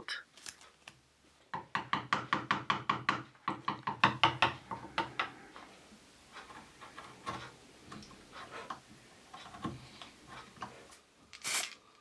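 Quick run of light knocks and taps of a hand tool on wood, about four or five a second, thinning to faint scattered clicks after about six seconds.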